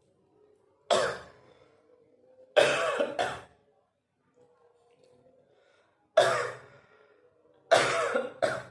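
A person coughing hard in four bouts, six coughs in all, some single and some in pairs. The coughing comes from choking on food while eating.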